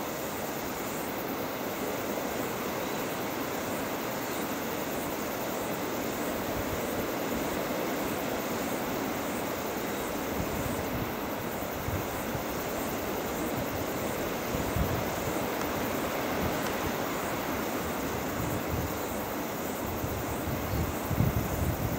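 Steady outdoor background rush with no distinct calls, and a few low wind bumps on the microphone about ten, fifteen and twenty-one seconds in.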